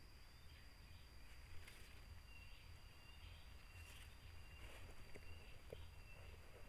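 Faint outdoor ambience, close to silence. A steady thin high drone runs throughout, and from about two seconds in a short high chirp repeats roughly every half second.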